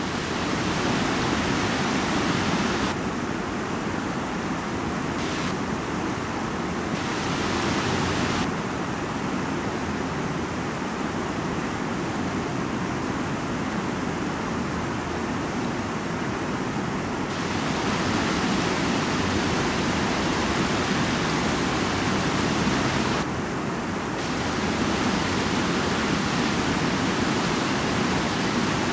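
Steady rush of a fast-flowing shallow river. The hiss dulls and brightens a few times.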